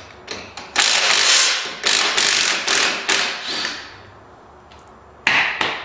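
Socket wrench ratcheting in several runs as the 5/8-inch nuts on the rear U-bolts are loosened.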